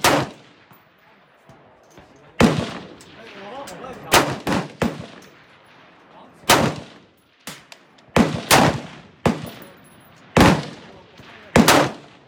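Rifle fire from a Smith & Wesson M&P15 Sport II AR-15 in 5.56 mm: about ten sharp cracks at an uneven pace, some a second or two apart and some in quick pairs, each followed by a short echo.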